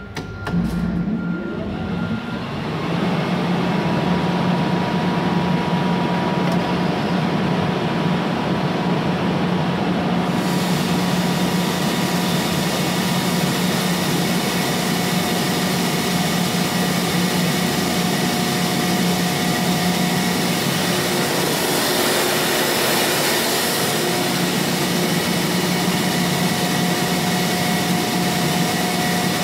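Kaeser BS51 40 hp rotary screw air compressor starting up: a few clicks, then the motor runs up over the first couple of seconds and settles into a steady hum. About ten seconds in a hiss of air joins as it runs on load, with a brief louder hiss around two-thirds of the way through.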